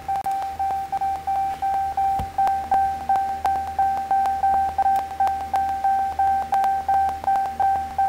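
2019 Ram 1500 instrument-cluster warning chime beeping rapidly and steadily, about three beeps a second, with the ignition on and the engine off. A soft thump about two seconds in.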